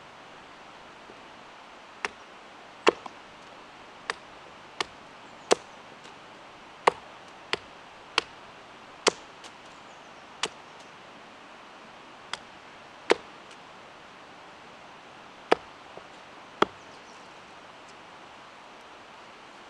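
Small hatchet chopping at a long stick laid against a wooden stump block, about fourteen sharp cuts at uneven intervals, roughly a second apart, as the stick is trimmed and shaped.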